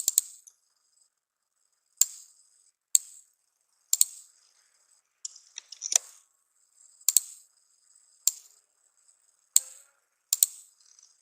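Sharp single clicks from a computer being worked, about a dozen spread unevenly, roughly one a second.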